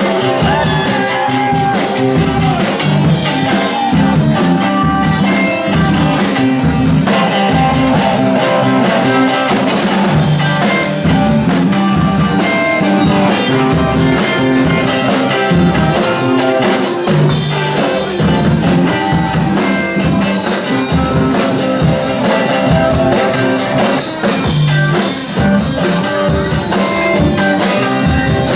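Live rock band playing, electric guitar over a drum kit keeping a steady beat with dense cymbal strokes.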